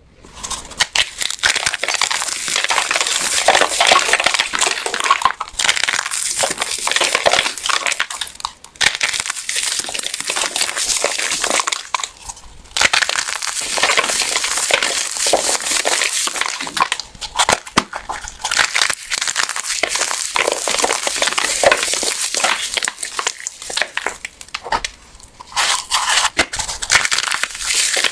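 Hands crushing crunchy golden-yellow soap blocks: dense, continuous crackling and crunching, broken by a few brief pauses.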